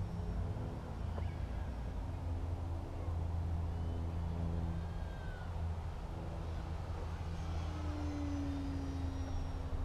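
Wind rumbling on the microphone over the faint drone of a Parkzone Focke-Wulf 190 model plane's electric motor, its pitch falling as the plane passes near the end. A few faint bird chirps.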